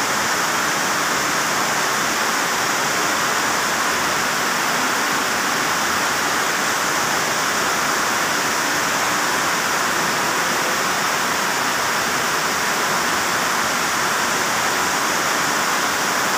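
Heavy rain falling steadily on a corrugated metal roof, an even, unbroken hiss.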